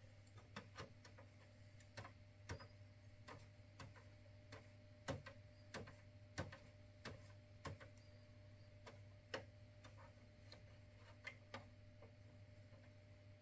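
Faint, irregular light clicks and taps of darkroom tongs against plastic developing trays as a photographic print is handled in the chemical baths, about twenty clicks scattered through, over a low steady hum.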